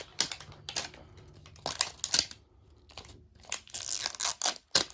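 Wrapping layers of a toy surprise ball being torn and crinkled by hand, in irregular rustling bursts that are busiest about two seconds in and again near the end.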